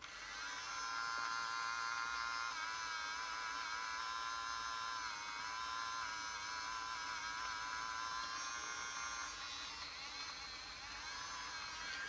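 Small electric motor of a Zizzle bump-and-go toy rowing boat running with its wheels turning free: a steady electric buzz that starts at once, its pitch wavering slightly, with a small change in tone near the end.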